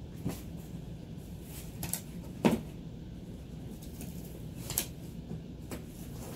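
Cardboard box crinkling and tearing in short, scattered bursts as a husky puppy bites and pulls at it, the loudest about two and a half seconds in. A steady low hum runs underneath.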